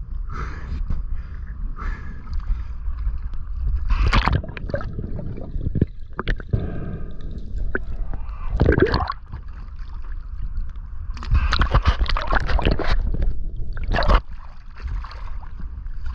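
Sea water sloshing and gurgling around a diver's camera at the surface and underwater, over a steady low rumble, with several loud bursts of splashing and bubbling.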